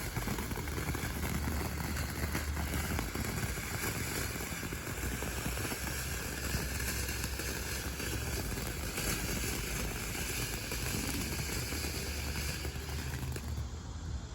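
Ground fountain firework ('Eagle Mountain') spraying sparks with a steady hiss, dying down near the end.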